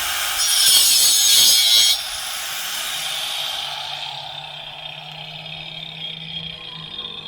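Angle grinder with a cutting wheel running and cutting through a tree branch: a harsher, louder stretch of about a second and a half as the wheel bites the wood, then the grinder runs free and winds down, fading away toward the end.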